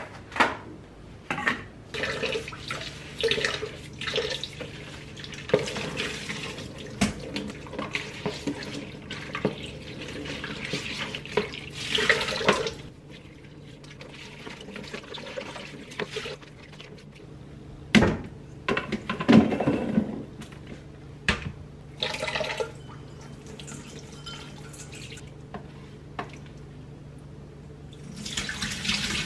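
A kitchen tap runs on and off into the sink as strawberries and blueberries are rinsed in a colander. Between the runs of water come clicks and knocks of the bowl and colander being handled, one sharp knock about two-thirds of the way through, and the water runs louder again near the end.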